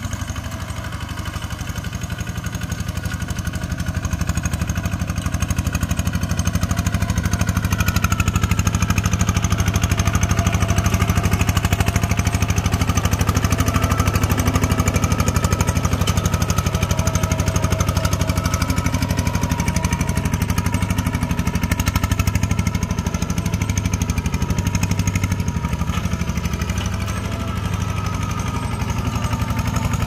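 Kubota 120 two-wheel walking tractor's single-cylinder diesel engine running steadily under load as it pulls a disc plow through dry soil, a rapid steady chugging that gets a little louder about five seconds in.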